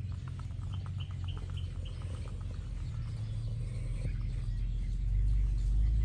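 Young Muscovy ducks giving a few short high peeps, with a quick run of light pattering taps in the first two seconds. A low rumble runs underneath and grows louder toward the end.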